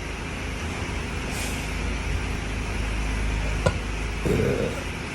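Steady low rumble like a running vehicle, with a single sharp click a little past halfway and a short, quieter burp just after it.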